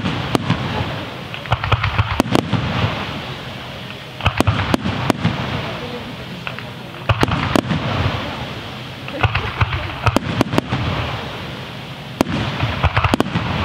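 Aerial fireworks display: shells bursting in quick clusters of sharp bangs about every two to three seconds, with a continuous rushing noise between the clusters.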